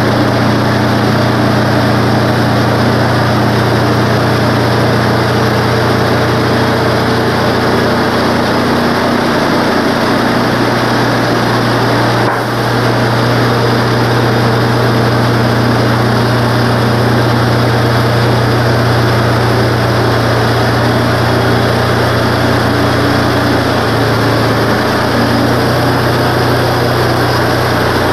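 Wood-Mizer LT15 bandsaw sawmill's engine running steadily under load as the saw head travels along a pine log, its band blade cutting through the wood. There is a brief dip in the sound about halfway through.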